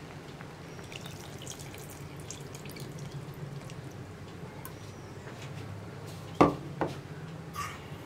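Tamarind water poured from a cup into a pot of simmering vegetables, dripping and splashing lightly over a steady low hum. A sharp knock comes about six and a half seconds in, followed by a smaller one.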